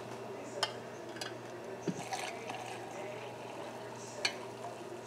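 Fresh-brewed coffee poured from a glass carafe into a ceramic mug, a steady trickle of liquid filling the cup, with a few sharp light clicks.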